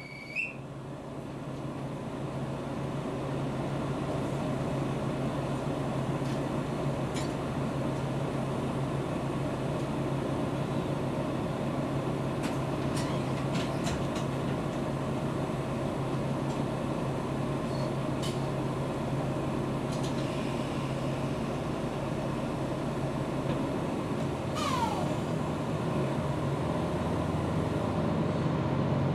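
Diesel railcar's engine idling, heard inside the passenger cabin while the car stands at a platform: a steady low hum with a few light clicks. A short falling squeal comes about 25 seconds in, and the engine note rises near the end as the car starts to pull away.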